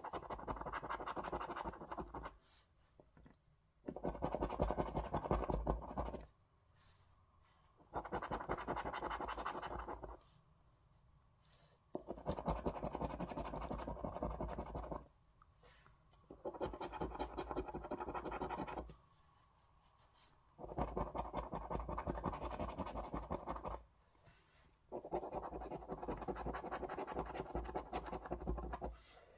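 A coin scraping the scratch-off coating from a lottery scratchcard in seven bouts of rapid strokes, each two to three seconds long, with short pauses between them.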